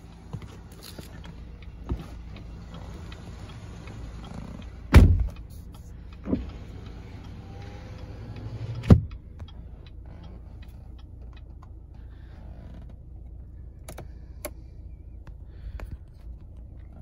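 Power window motor of a car door working the glass, with clicks from the switches and a few heavy thumps, the loudest about five seconds in, over the steady low hum of the idling 3.6-litre V6.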